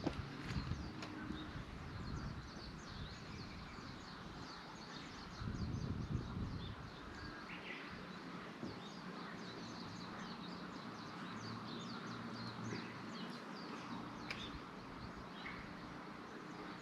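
Faint outdoor ambience with many short bird chirps throughout, over a low steady background hiss; a brief low rumble about six seconds in.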